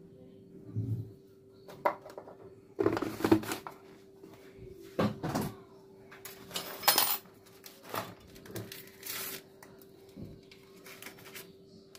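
Kitchen handling sounds: a metal spoon and ingredients handled over a plastic bowl of dry semolina, giving scattered clinks and knocks and several short scraping or rustling bursts, over a faint steady hum.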